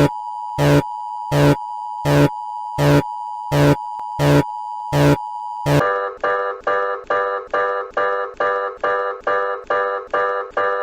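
Electronic emergency alert signal: a steady tone with a loud pulse about every three-quarters of a second, then, about six seconds in, a switch to a faster repeating tone, about two a second, each note fading quickly.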